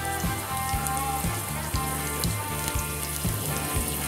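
Background music with a steady beat, about two beats a second, over the sizzling of curry leaves frying in hot coconut oil in a pan.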